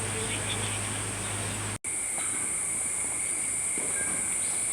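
Steady high-pitched buzz of rainforest insects, with a low steady hum under it until a sudden cut in the sound about two seconds in.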